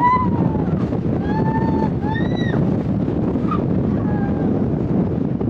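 Strong mountain wind buffeting the microphone, a steady rumbling noise, with a few short high-pitched calls from distant voices about a second and two seconds in.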